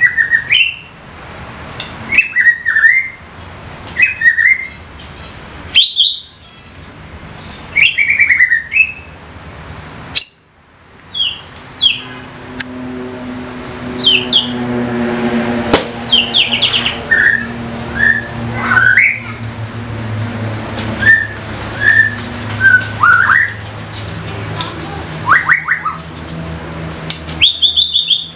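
Young white-rumped shama (murai batu) singing loudly in full voice: short phrases of sharp whistles and chattering notes that glide up and down, one every second or so. A steady low hum runs underneath through the middle of the stretch.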